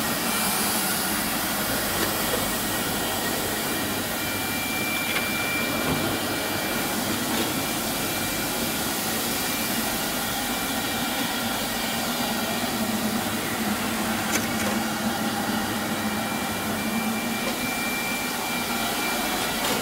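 Industrial automatic carpet washing machine running steadily, its electric brush motors and vacuum system giving an even whirring hiss, with a faint high whine that comes and goes.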